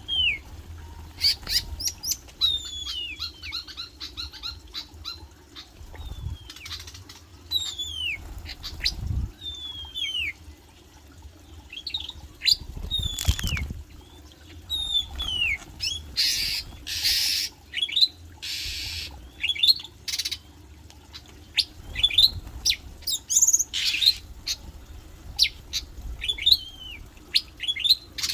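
Caged Asian fairy-bluebird (cucak biru) calling: repeated short, sharply down-slurred whistled notes, with short bursts of wing flapping about two-thirds of the way through.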